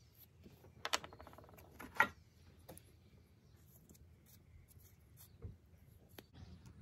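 Faint scraping and tapping of a wooden craft stick spreading grey adhesive paste over a wooden knife-handle scale. A short chattering scrape comes about a second in and a sharp tick about two seconds in.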